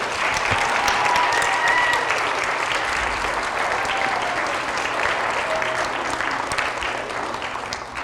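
An audience of schoolchildren applauding steadily after an award winner is named, with a few voices calling out faintly within it.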